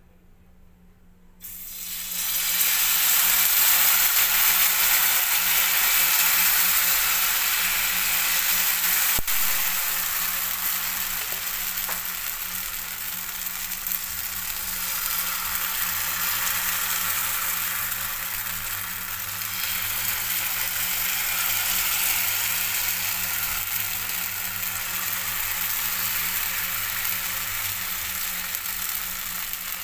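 Uttapam batter sizzling in hot oil on a non-stick pan, starting suddenly about a second and a half in as the batter hits the pan. The sizzle is loudest just after it starts, then carries on slightly lower while the batter is ladled and spread.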